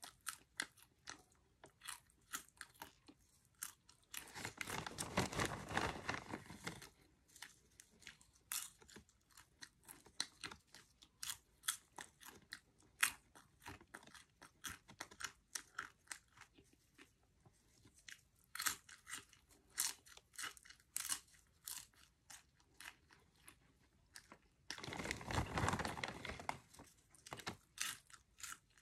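Cheddar cheese popcorn being chewed close to the microphone: a steady run of quick, sharp crunches. Twice, about four seconds in and again near the end, a louder noisy stretch lasts about two seconds.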